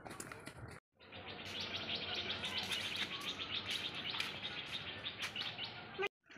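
Forest ambience: a dense, steady chorus of high-pitched chirping from birds and insects, cut off briefly about a second in and again near the end.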